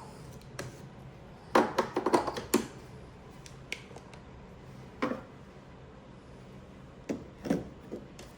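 Hard clacks and knocks of espresso gear being handled at a Breville Barista Express: a quick run of several clatters about two seconds in, then a few single knocks later. A low steady hum runs underneath.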